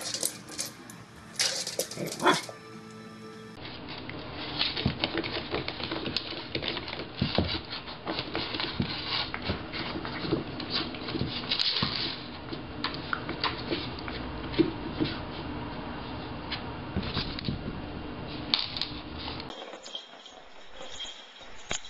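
Small dogs playing with pumpkins on a wooden floor: a pug barks a couple of times in the first few seconds. After that come many small knocks and scuffles, with music playing behind.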